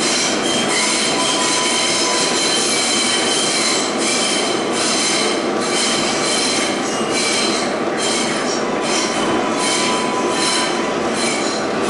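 R188 subway train running at speed through a tunnel: a steady loud rumble of wheels on rail, with thin high wheel squeal held over it and surges of hiss that come and go every second or so.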